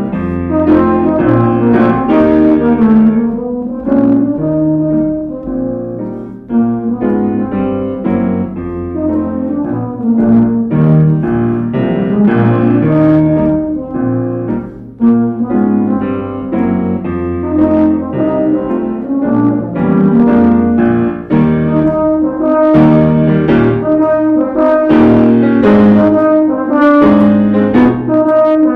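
Euphonium playing a melody with grand piano accompaniment.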